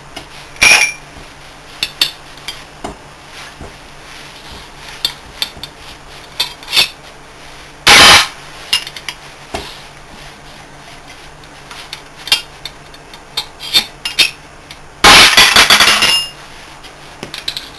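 Metal tools and bolts clinking and clanking against a steel workbench and the compressor's metal housing while its motor end cover is being unbolted. There is a loud ringing clang about a second in, another near the middle, and a quick run of loud clangs near the end.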